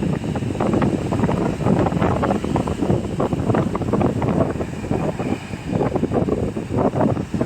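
Wind buffeting the microphone in irregular gusts at the seashore, with sea surf beneath it.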